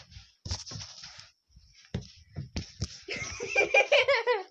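People giggling and snickering: short breathy bursts at first, then a louder, longer voiced laugh from about three seconds in.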